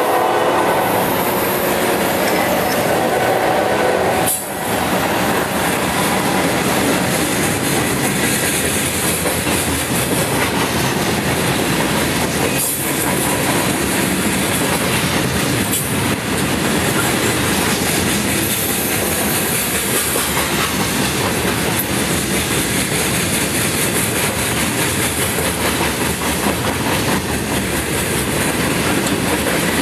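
Freight train of gondola cars loaded with steel pipes rolling past: a steady, loud rumble of steel wheels on the rails, broken by a few sharp knocks.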